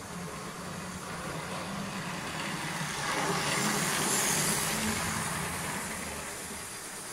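OO gauge model train running past on the track, its motor and wheels making a steady whirring rumble that grows louder as it passes close, about three to five seconds in, then fades.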